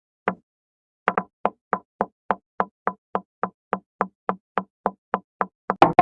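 Knocking sound effect: a single knock, then from about a second in a steady, quicker run of knocks at about three and a half a second, with a louder jumble of sounds starting right at the end.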